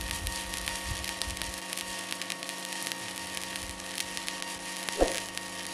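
Stick (SMAW) welding arc crackling steadily as a 2.4 mm electrode at about 85 amps runs a continuous bead on steel plate, the rod no longer sticking. A steady hum lies underneath, and there is one short pop about five seconds in.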